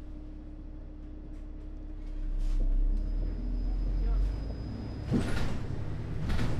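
City bus interior: the bus's low engine rumble, swelling about two seconds in and easing after four, with a faint high whine for a couple of seconds and two short bursts of hiss near the end.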